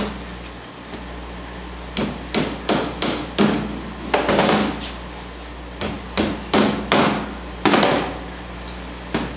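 Hammer driving tacks through canvas into a wooden stretcher bar: about a dozen sharp taps, a quick run of five starting about two seconds in, then more in short runs through the rest.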